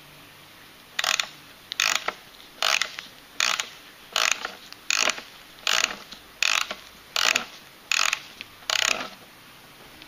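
Butterfly key winding the mainspring of a French Bontems singing bird automaton movement, its click ratchet sounding. Eleven short ratcheting bursts come about three-quarters of a second apart, one with each twist of the key.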